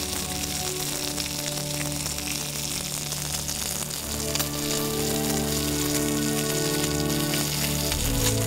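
Slice of pork belly sizzling in its own fat on a hot griddle, a steady crackle with small pops, over sustained background music.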